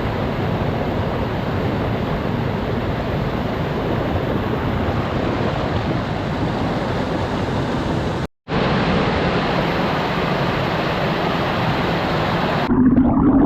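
Rushing water from a rainforest waterfall or cascade, a loud steady roar of noise, broken by a sudden silent gap about eight seconds in. Near the end it gives way to a lower, humming sound.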